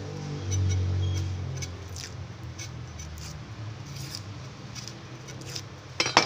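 Kitchen knife cutting a red onion, with scattered crisp cuts and light taps of the blade on a plastic cutting board, roughly one a second, and a sharper double knock near the end. A low hum fades out over the first two seconds.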